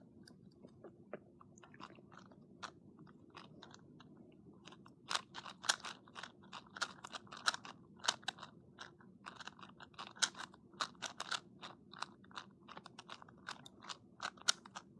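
Plastic 2x2 speed cubes being turned fast during a solve: an irregular clatter of quick clicks, sparse at first and much busier from about five seconds in.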